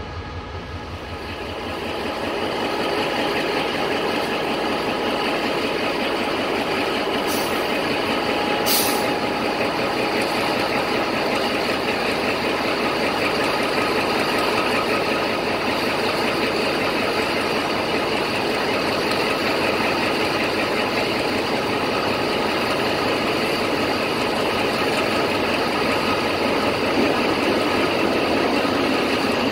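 Diesel locomotive engine running loudly and steadily, building over the first couple of seconds, with a steady whine over the engine noise. A short high hiss comes twice, about seven and nine seconds in.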